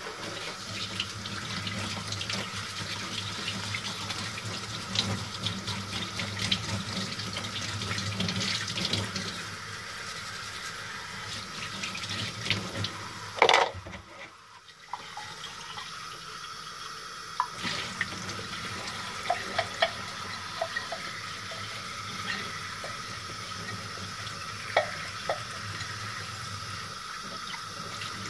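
Water running steadily, with scattered small clicks and knocks. There is one louder knock about halfway through, then a brief dip before the running sound resumes.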